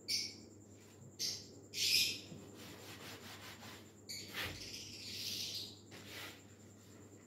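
Thin kite paper being handled and moved on a table, crinkling in several short rustling bursts, over a faint steady low hum.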